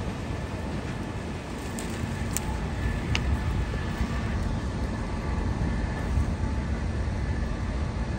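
Steady low rumble of a large blaze and running fire-engine motors, with a few sharp crackles about two to three seconds in.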